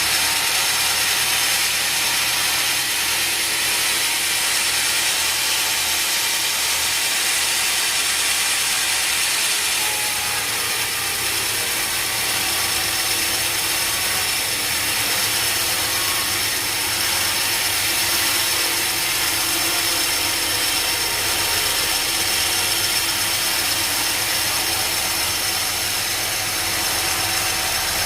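Sawmill machinery running steadily: a constant mechanical noise with a few held tones through it.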